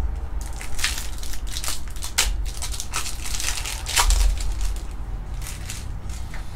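Foil wrapper of a Topps Chrome trading-card pack crinkling and crackling as it is opened by hand, a dense run of sharp crackles, loudest about four seconds in.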